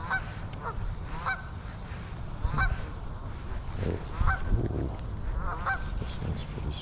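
Geese honking: about six short, upward-bending calls, roughly one a second.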